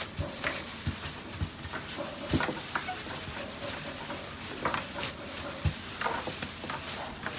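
Dough being handled and shaped by plastic-gloved hands on a wooden worktable: rustling and crinkling of the gloves, with scattered clicks and a few soft knocks on the table.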